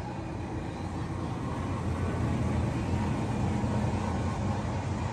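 Steady low rumble that grows a little louder over the first couple of seconds and then holds.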